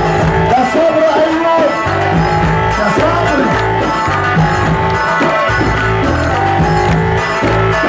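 Loud Egyptian sha'bi wedding music: a steady drum beat over deep bass, with a lead melody that bends up and down in pitch.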